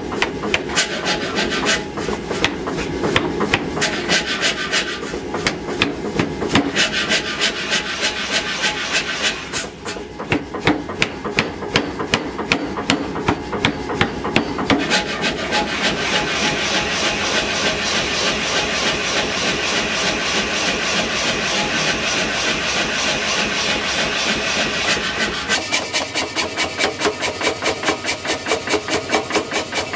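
Power hammer striking a red-hot steel canister of scrap metal in a rapid, steady rhythm of blows, forging the packed scrap into a solid billet. The blows change in tone about a quarter of the way in and again near the end.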